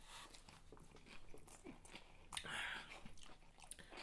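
A person chewing and biting food close to the microphone: faint wet mouth clicks, with one brief louder noise about two and a half seconds in.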